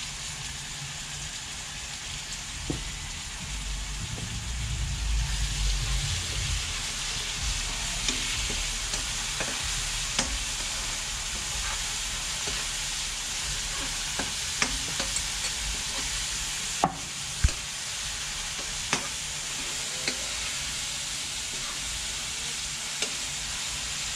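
Onion, tomato, garlic paste and green seasoning sizzling in hot oil in a pot as they are stirred, the sizzle growing louder about five seconds in. Sharp knocks of the spoon against the pot come every second or few.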